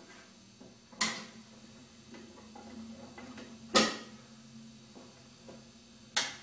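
Wooden cabinet doors being handled and swung open: three sharp knocks, the loudest nearly four seconds in, each ringing out briefly.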